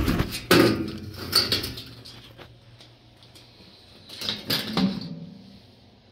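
Sheet-steel front access panel of an old Burnham gas boiler being pulled off and set down, rattling and clanking: a run of clatters in the first second and a half, and another about four and a half seconds in as it is leaned against a shelf.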